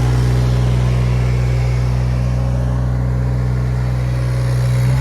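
Three-cylinder Yanmar 3TNV74F diesel of an SDLANCH ME20 mini excavator running steadily, a loud, even engine hum that dips slightly about three to four seconds in.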